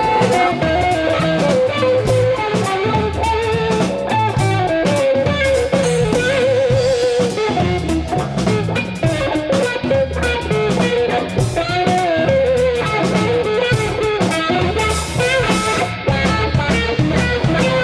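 Instrumental rock music: a lead guitar melody with bends and vibrato over a drum kit beat.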